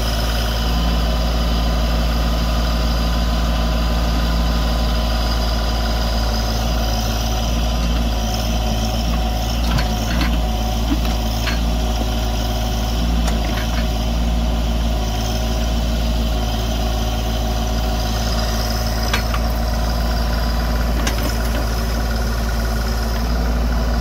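Branson compact tractor's diesel engine running steadily while it powers the BH100 backhoe's hydraulics through a dig cycle, with a few light knocks from the backhoe partway through.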